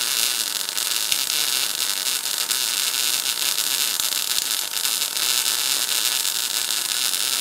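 MIG welding arc with steady hiss and crackle: a PTK Rilon MIG 200 GDM semi-automatic welder laying a bead with 0.8 mm wire on 3 mm metal under CO2 shielding gas, the torch at a backhand angle.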